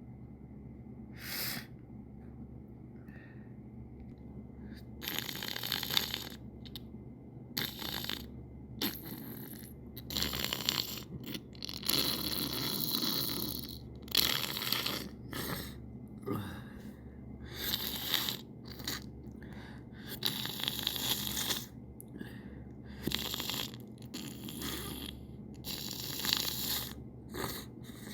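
A person sniffling and snorting through the nose in a long run of noisy breaths, some quick and some drawn out over a second, while working up to a sneeze.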